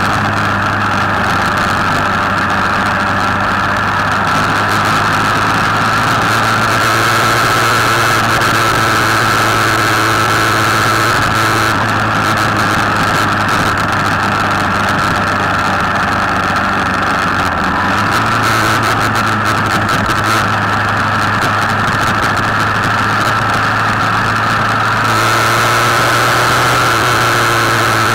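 Motor scooter engine running steadily at cruising speed, heard from on board with wind and road noise; the engine note steps up slightly about two-thirds of the way through.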